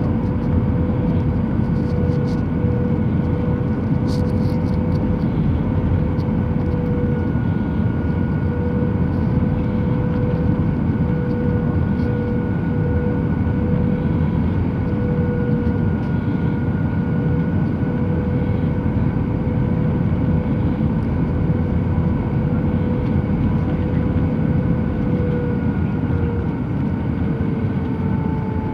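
Jet airliner cabin noise on descent: the steady roar of the engines and rushing air, with a steady engine whine that drops slightly in pitch near the end.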